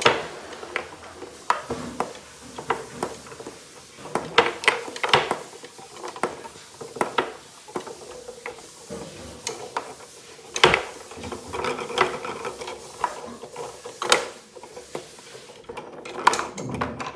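Tabletop foosball in play: irregular clacks and knocks as the plastic player figures strike the ball and it hits the sides of the wooden box, with several sharp, loud hits among lighter taps.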